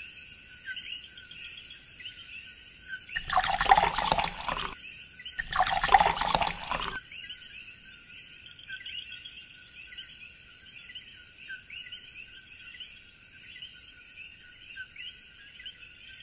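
Liquid poured into a glass in two short splashing pours, a second or so apart, over a steady background of high chirping.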